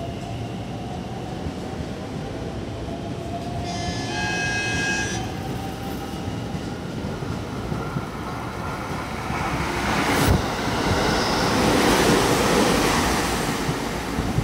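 JR Central 313 series 8000 electric multiple unit passing through without stopping. About four seconds in it gives one short horn blast lasting about a second. From about ten seconds in, the noise of the train running past builds and is loudest near the end.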